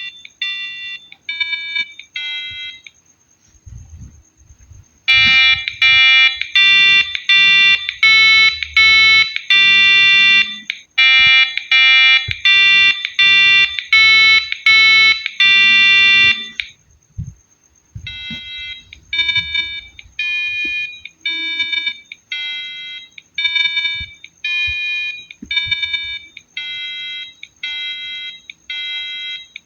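Piezo buzzer on an Arduino Uno playing simple tunes as rapid shrill beeping notes at changing pitches, the songs chosen by pressing keys on a 4x4 keypad. A loud tune starts about five seconds in and stops near seventeen seconds. After a short pause a second, quieter tune plays, with faint knocks in the pauses.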